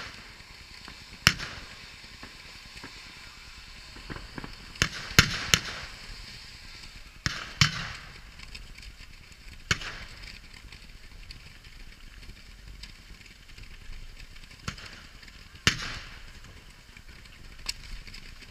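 A ground-level firework cake firing, about ten sharp reports at irregular intervals, some in quick pairs, over a steady hissing crackle.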